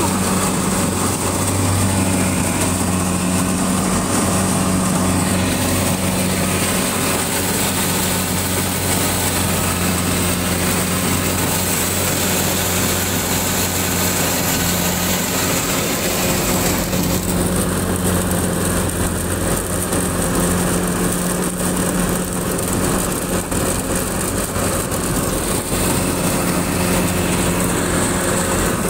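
A Kubota combine harvester's diesel engine and threshing machinery running steadily while harvesting, with a constant low hum. The higher hiss thins out about two-thirds of the way through.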